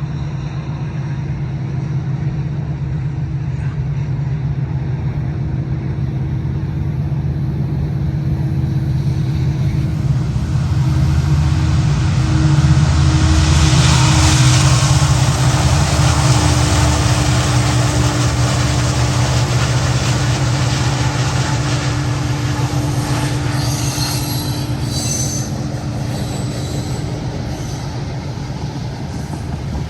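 Diesel freight train passing, led by an SD75I and an SD70I locomotive: a steady low engine drone that swells about halfway through and then eases, with rail noise from the freight cars. Short high wheel squeals come in near the end.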